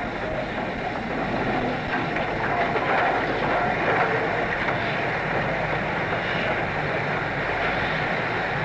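Steam locomotive Flying Scotsman, an LNER A3 Pacific, running: a steady rushing noise of steam and motion, a little louder after the first second or two, heard as an old reel-to-reel tape recording.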